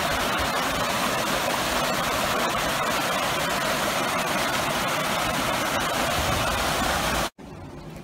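Hot thermal spring water rushing and churning over a small concrete weir and down its channel, a loud steady rush of white water. It cuts off suddenly near the end.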